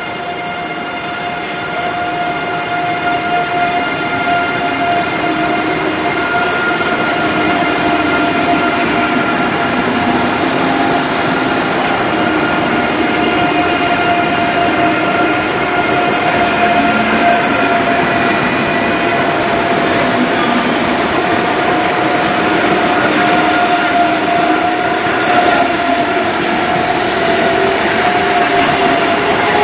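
ICE 3 high-speed electric trainset moving slowly along the platform. A steady electric whine made of several high tones runs over the rolling noise of its wheels.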